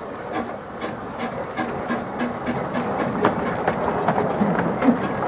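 Small narrow-gauge steam locomotive moving slowly on its track, with a run of clicks and knocks from its wheels and motion, growing louder as it approaches.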